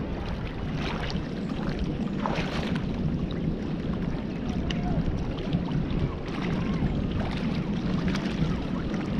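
Steady wind noise on the microphone over small waves lapping at a rocky lagoon shore.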